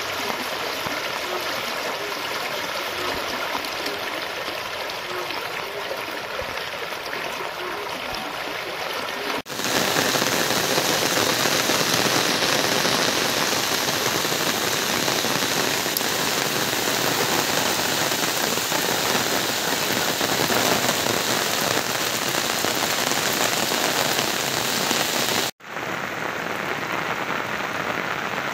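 Steady rushing noise of flood water flowing fast, heard in three separate shots. It is loudest in the long middle stretch and dips briefly at each change of shot.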